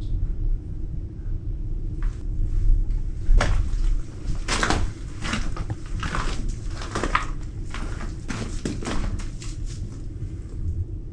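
Footsteps crunching on loose rock and rubble at an uneven walking pace, over a steady low rumble.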